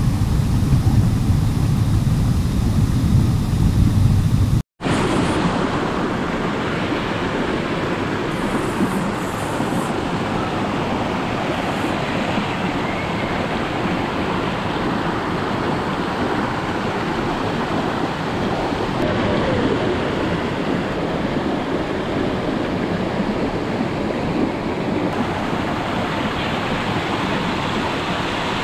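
Steady rush of a river running over rocks near a waterfall. It is a deep rumble for the first few seconds, then after a sudden break about five seconds in it becomes a brighter, even rushing.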